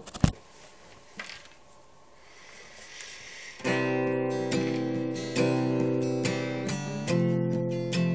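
A few knocks of the camera being handled at the start, then a quiet stretch, then an acoustic guitar strummed from about halfway in, chords struck roughly twice a second and left ringing.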